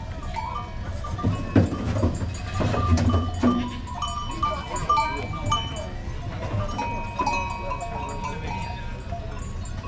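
Livestock bells on a pen of goats clanking and ringing at several different pitches, with several knocks in the first few seconds.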